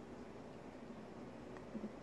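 Quiet room tone with a faint hiss and one small click near the end.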